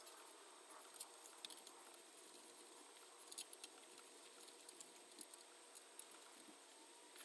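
Near silence: faint room hiss with scattered small clicks and ticks.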